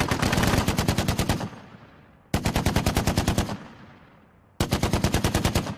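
Browning M2 .50 calibre heavy machine gun firing three short bursts of automatic fire, each a rapid, even string of shots lasting a second or so. A long echo dies away after each burst.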